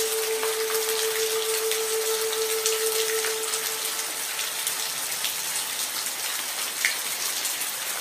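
Steady rain, an even hiss with scattered individual drop ticks. A single held musical note fades out about halfway through, leaving only the rain.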